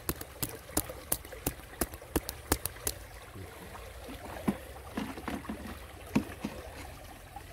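Shallow rocky stream trickling faintly, with sharp regular clicks about three a second that stop about three seconds in.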